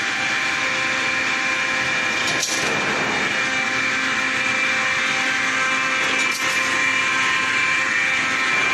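CNC wire straightening and cutting machine running on 10 mm wire, a steady mechanical hum with a whine. A sharp knock about every four seconds as each rod is cut off.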